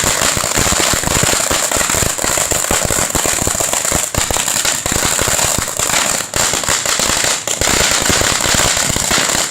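A rapid, unbroken crackle of firecrackers, many sharp pops a second, over a steady high hiss.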